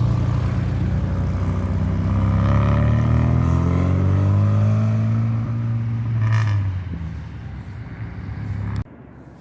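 A car engine passing close by, its note rising and then falling away as it goes off. The sound cuts off abruptly near the end.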